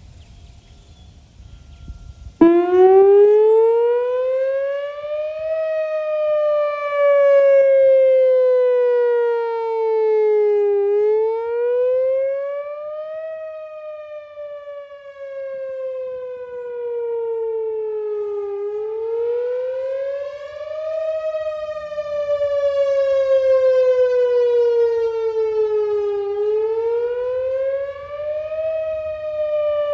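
Whelen Vortex R4 outdoor warning siren sounding its wail during a monthly test. It comes on suddenly about two seconds in, then sweeps slowly up and down in pitch about every seven to eight seconds, its loudness swelling and fading.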